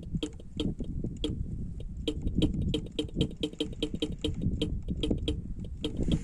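Rapid, even electrical clicking from a Bajaj Pulsar UG 180 motorcycle, about five clicks a second. The battery is flat, and this chatter is typical of the starter relay on a battery too weak to turn the motor over.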